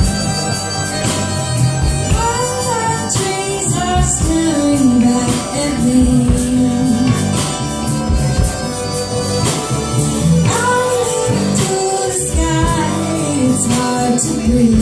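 Live band music: a woman sings over acoustic guitar, bass guitar and piano accordion, with drums keeping a beat. The voice comes in about two seconds in.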